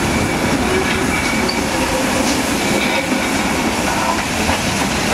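Steam locomotive rolling slowly past on station tracks: a steady running rumble, with the wheels clattering over the rail joints.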